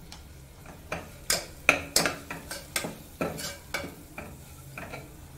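Steel spoon stirring vegetables in a pressure cooker pot, scraping and clinking against the metal wall in a quick run of about three strikes a second that starts about a second in.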